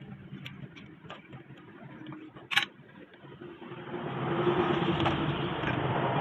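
Small single-cylinder motorcycle engine, a Honda 70cc, running low with a few sharp clicks, the loudest about two and a half seconds in, then picking up again about four seconds in.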